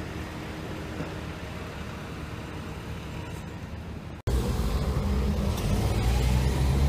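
Muffled road traffic, then after a sudden cut about four seconds in, a louder, steady low rumble of car engines that grows slightly.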